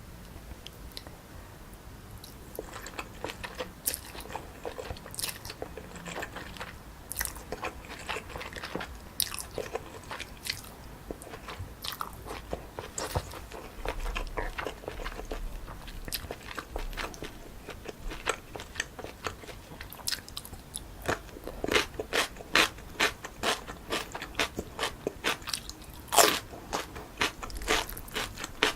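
Close-miked biting and chewing of crunchy food, a string of sharp, crisp crunches that become louder and more frequent in the last third.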